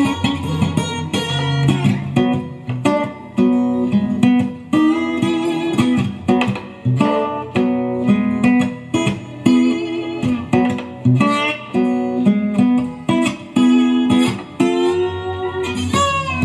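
Guitar-led song with plucked notes and a steady bass line, played back through a two-way studio monitor speaker driven by a home-built LM3886 bi-amplifier during a listening test.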